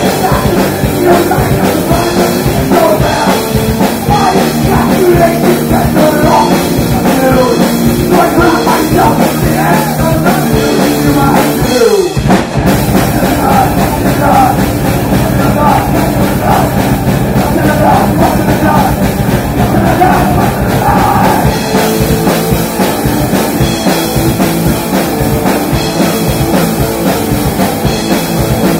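Live metal band playing loud: distorted electric guitars, bass guitar and a drum kit. About twelve seconds in there is a quick downward pitch slide and a brief break before the riff picks up again.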